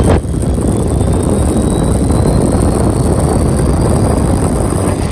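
Electric ducted fan of a Freewing MiG-21 RC jet running at high throttle on a bench: a loud, steady rush of air with a high whine that slowly rises in pitch.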